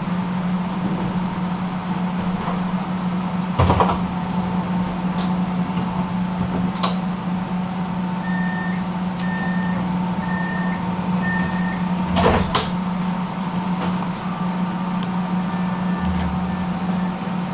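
Tram running with a steady electrical hum, with two short clunks. Near the middle come four short, evenly spaced high beeps.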